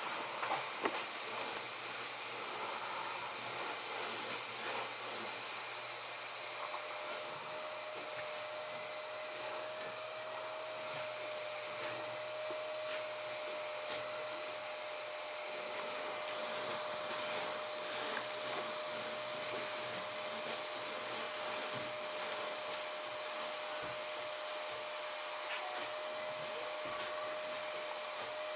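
Dell T5500 workstation's cooling fans running steadily under benchmark load: an even rushing noise with a constant mid-pitched tone and a constant high whine over it.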